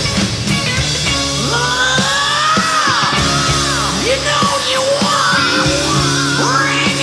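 Rock band playing live on acoustic instruments, with sustained low chords under high lines that bend and slide up and down.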